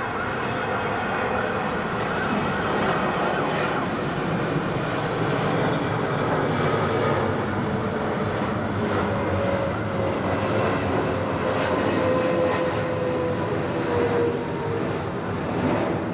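Boeing 777 airliner's jet engines passing overhead: a steady loud rushing roar, with a tone that slowly falls in pitch in the second half as the jet goes by. An emergency-vehicle siren wails over it for the first few seconds.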